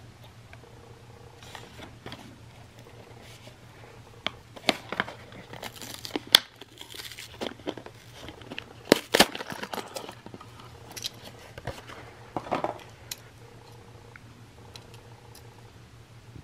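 Clear plastic blister packaging of a toy train engine crinkling, cracking and tearing as it is pried open by hand, with sharp snaps about six and nine seconds in.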